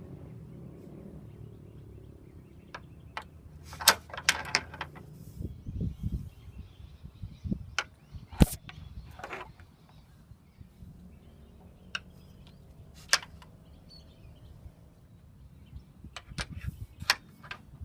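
Scattered sharp knocks and clanks of a boat hook on its pole being handled against the boat and trailer, loudest about four and eight seconds in, with a low hum in the first few seconds.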